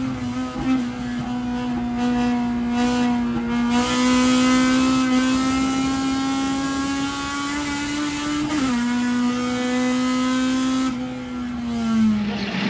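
Honda Civic EF9 race car's four-cylinder engine at high revs, heard from inside the stripped cabin on a circuit lap. The pitch holds high with a slow rise, drops suddenly at a gear change about eight and a half seconds in, then falls near the end as the car slows.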